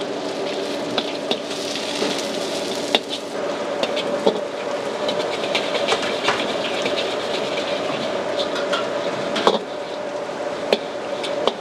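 A metal spatula stirs and scrapes noodles in a steel wok over a charcoal fire, with the noodles sizzling. The spatula strikes the wok with sharp clanks every second or two, over a steady hum.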